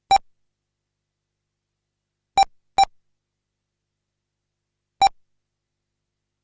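Electronic lap-counter beeps from an RC race timing system, short single-pitched beeps as cars cross the timing loop: four in all, two of them close together near the middle.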